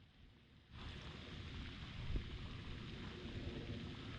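Steady outdoor background noise that starts suddenly under a second in after near silence, with one soft low thump about two seconds in.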